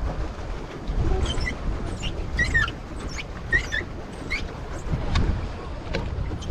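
Wind buffeting the microphone over open water, a steady low rumble. From about a second in until past the middle, a run of short, high, sliding squeals sounds over it.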